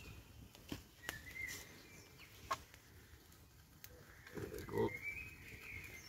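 Wood campfire crackling with a few sharp pops, while birds call in the surrounding woodland: two drawn-out high calls and a lower call about four to five seconds in.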